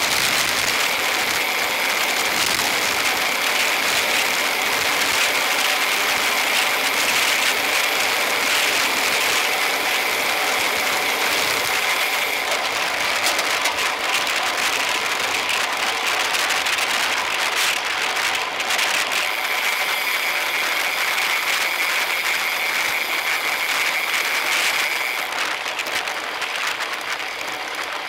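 Road bikes in a racing bunch: steady tyre and wind noise with the high buzz of freewheel hubs ratcheting while coasting. The buzz drops out for several seconds about halfway through and again a few seconds before the end.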